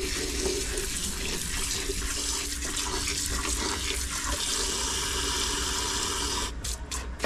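Water from a dock hose's spray nozzle pouring into a plastic bucket, steady, then stopping and starting in a few short spurts near the end.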